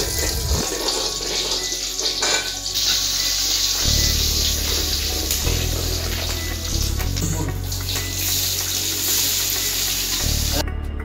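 Hot oil sizzling in an aluminium kadai as a metal ladle stirs it. The sizzle grows louder after about three seconds and cuts off suddenly near the end.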